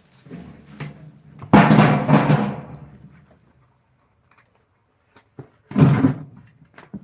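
Two heavy, resonant thumps about four seconds apart, each ringing out for about a second.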